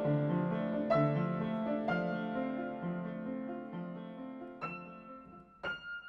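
Slow, soft piano music fading out: chords struck about once a second and left to ring, then two lighter high notes near the end that hang on as it dies away.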